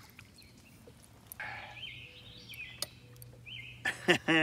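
A bird calls in a run of short chirps for a couple of seconds, over faint outdoor background. Near the end a man's voice comes in briefly.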